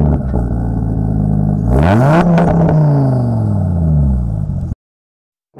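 BMW M8 Competition's twin-turbo V8 engine running, then revving up sharply in pitch about two seconds in and falling away slowly over the next couple of seconds. The sound cuts off suddenly near the end.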